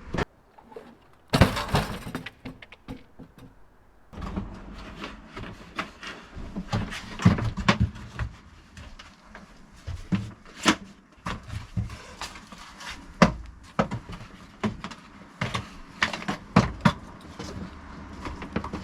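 Scattered knocks, clunks and scraping as a motorhome fridge surround is worked loose and pulled out of its opening, with a loud clatter about a second and a half in.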